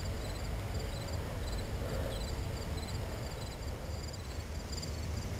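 Insects chirping in short, evenly repeated pulses, high-pitched, over a steady low rumble.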